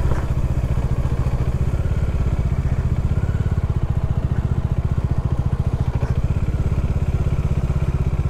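Motorcycle engine running steadily, a fast, even low-pitched pulsing of its firing strokes.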